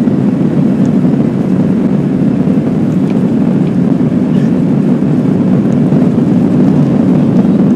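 Loud, steady rumble inside the cabin of a Boeing airliner during its takeoff roll: the jet engines at takeoff thrust together with the runway roll.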